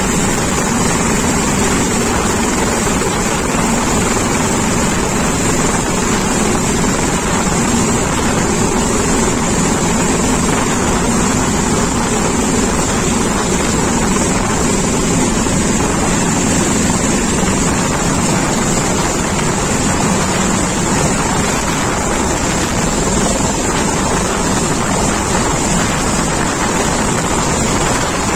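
Coastguard rescue helicopter hovering low overhead: loud, steady rotor and engine noise with a high whine running through it, and the rotor downwash buffeting the microphone.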